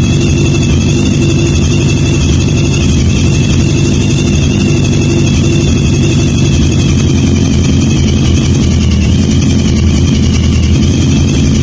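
Kawasaki GPZ1000RX motorcycle's inline-four engine idling steadily and loudly.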